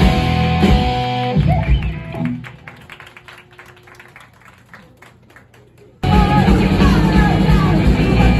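Live rock band with electric guitars and drum kit playing the final bars of a song, the last chord ringing out and dying away about two seconds in. The audience then claps, and about six seconds in the full band's playing cuts back in suddenly at full volume.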